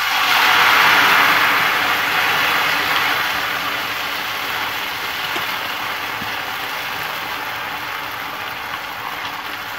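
Hot oil sizzling loudly as a clump of fresh rice noodles is dropped into a frying pan: the moisture in the noodles makes the oil bubble up hard. The sizzle is strongest about a second in and slowly eases off.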